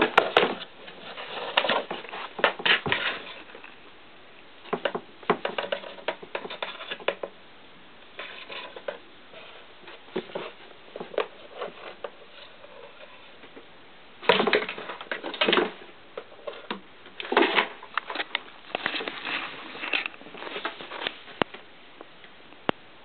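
Cardboard box scraping and rustling in irregular bursts as a cat bats at and wrestles a fluffy teaser toy inside it, its claws and body rubbing the cardboard.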